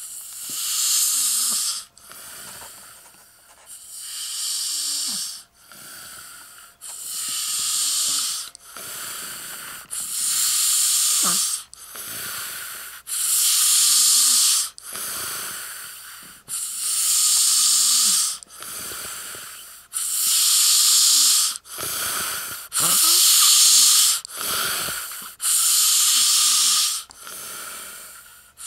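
A person snoring in deep sleep: a loud, hissing, wheezy breath about every three seconds, with quieter breaths between that carry short low squeaks.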